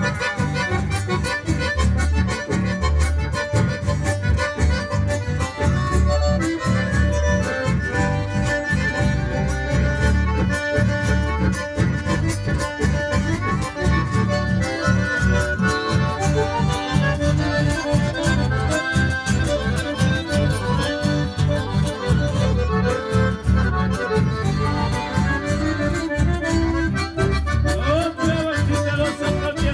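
Live chamamé played by a button accordion and bandoneón over strummed acoustic guitars and electric bass, in an instrumental passage with a steady beat.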